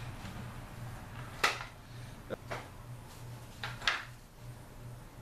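Sword being drawn from its scabbard and swung in a cut: a few short sharp swishes and knocks, the loudest about one and a half seconds in and another near four seconds, over a low steady hum.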